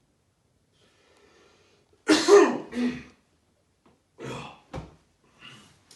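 A person's loud sneeze about two seconds in, in two quick parts, followed by a few shorter, quieter breathy sounds.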